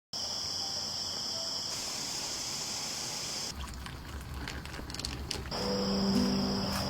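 Steady high-pitched chirring of insects. About three and a half seconds in it gives way to a couple of seconds of rustling clicks and low rumble; then the insect sound returns and soft background music begins near the end.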